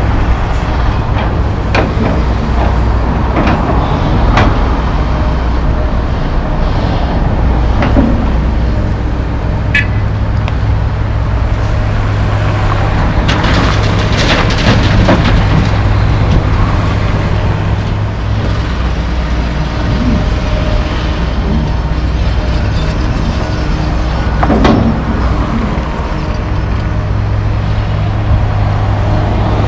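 Heavy diesel engines of a John Deere 470G track excavator and an International dump truck running steadily, with a low drone throughout. Scattered clanks and knocks come through it, and a louder rush in the middle as a bucketload of dirt drops into the truck's steel dump box.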